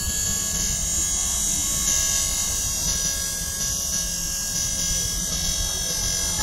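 Small brushed DC motor running steadily, a continuous high-pitched whir with a low rumble beneath.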